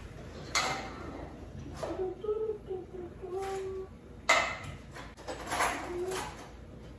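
Kitchen drawer being opened and cutlery clattering as someone rummages through it for a knife: a handful of sharp clinks and knocks, the loudest about four seconds in.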